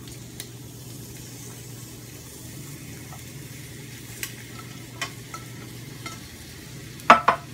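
Egg and cucumber pieces sizzling steadily in a hot frying pan, with a few light clicks as cucumber chunks drop in. A brief, louder clatter near the end.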